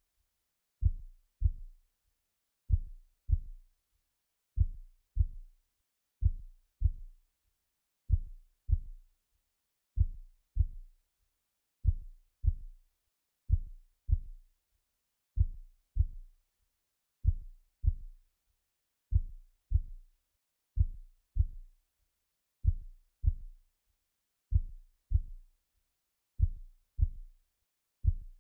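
Slow heartbeat sound: soft low double thumps (lub-dub), a pair about every two seconds, repeating evenly.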